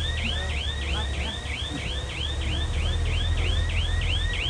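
A heavy machine's diesel engine runs steadily with a low rumble, under a fast, evenly repeating electronic warble alarm of about four to five chirps a second.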